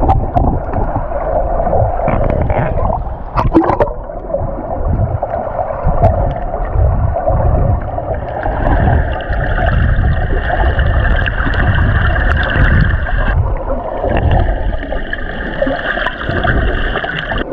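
Water sloshing and gurgling around a camera held at or just under the surface while snorkeling in choppy water. A steady hum with several fixed pitches joins about eight seconds in and breaks off briefly past the thirteenth second.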